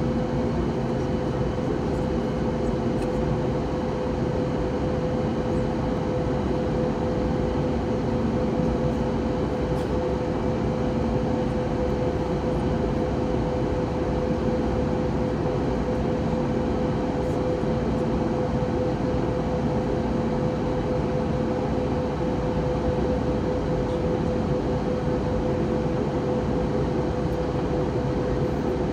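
Steady in-flight cabin noise of an Airbus A320neo: a constant drone of rushing air and engines with a steady hum-like tone running through it.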